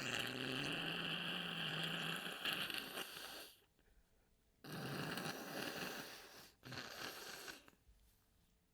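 A person blowing their nose hard after a sneezing fit: three long, noisy blows, the first and longest about three and a half seconds, the last the shortest.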